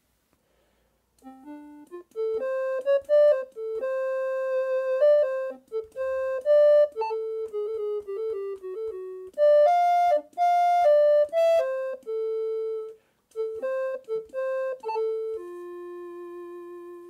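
Yoshimi software synthesizer's "Ocarina" patch, played from a 3D-printed MIDI ocarina controller. It plays a simple melody of single electronic notes, starting about a second in and ending on a long held low note.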